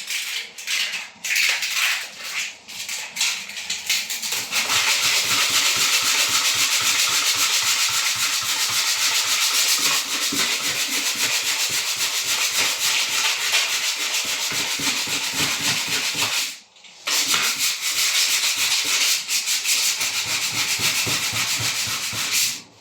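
Steady, loud rasping and grinding of a tool working on the door, in two long runs with a short break about 17 seconds in. A few scrapes and knocks come before the first run starts.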